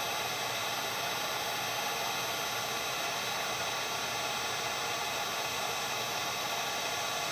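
Wagner heat gun blowing a steady hiss of hot air onto a laptop circuit board to melt the solder.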